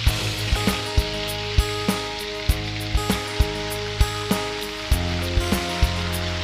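Beef kikil sizzling as it is stir-fried in a pan, over background music with sustained notes and a regular clicking beat.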